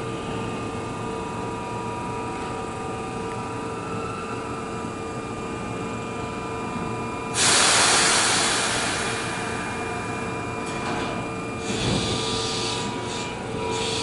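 Keihan 8000 series electric train standing at a platform, its onboard equipment humming steadily. About seven seconds in, a sudden loud hiss of compressed air bursts out and fades over a couple of seconds, and shorter hisses follow near the end.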